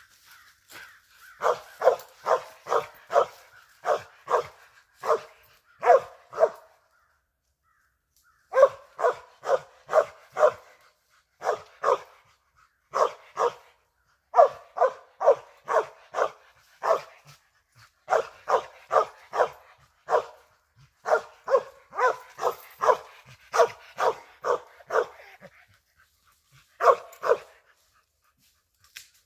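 Squirrel dog tree-barking at the base of a tree, short barks about three a second in long runs broken by brief pauses: the chop of a dog that has treed a squirrel.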